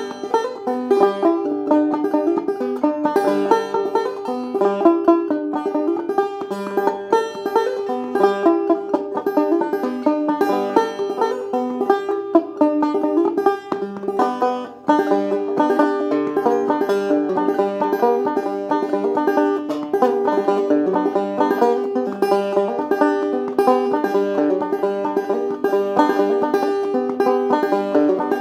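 Five-string banjo in open G (gDGBD) tuning playing a solo instrumental tune, a steady stream of quick picked notes.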